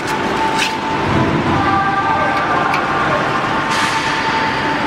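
Steady, loud factory machinery noise with several held whining tones, broken by a few sharp metallic clicks.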